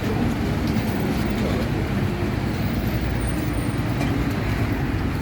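A steady low rumble of a running vehicle.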